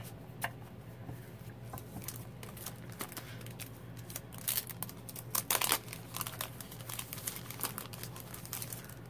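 Clear cellophane packaging crinkling and rustling as paper cards are handled and slid in and out of it, in irregular bursts with the loudest rustles a little after the middle.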